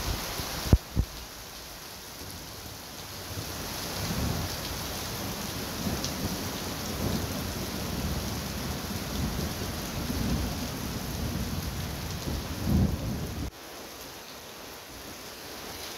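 Heavy rain hissing steadily, with a long roll of thunder rumbling from about three seconds in until it cuts off abruptly near the end. Two sharp knocks, the loudest sounds, come about a second in.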